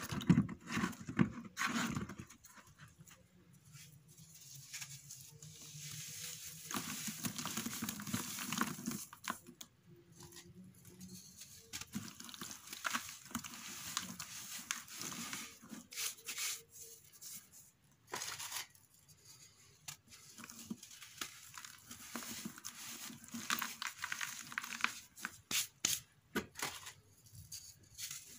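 Wet sand-and-cement balls crumbled by hand, gritty crumbs rubbing and pattering down into a plastic tub of water, in uneven spells with scattered small clicks. The loudest, sharpest drops come in the first two seconds.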